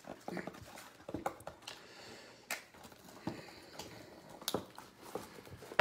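Shiny wrapper of a Panini Prizm football trading card pack being crinkled and torn open by hand: scattered crackles and rustles, with a sharper crackle at the very end.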